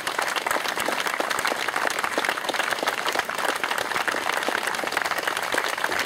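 A crowd applauding: many hands clapping steadily and densely.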